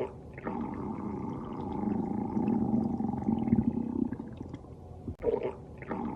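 Stomach growling: a long, low, gurgling rumble with a short break about five seconds in.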